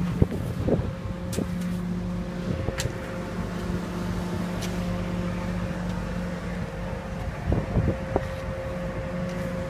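An engine running steadily at a constant speed, with a few short knocks and clatters over it, a cluster of them near the end.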